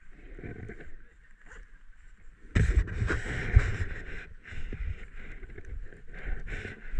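Close scraping and crunching of snow and clothing as a climber with an ice axe shifts and slides on a snow slope; it turns suddenly loud about two and a half seconds in and goes on unevenly.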